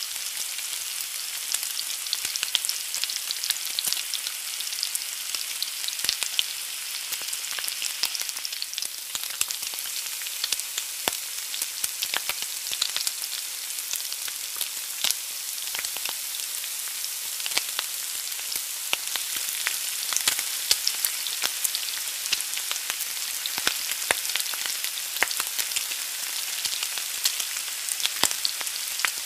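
An egg frying in a pan: a steady, high sizzle with frequent sharp pops and crackles scattered irregularly through it.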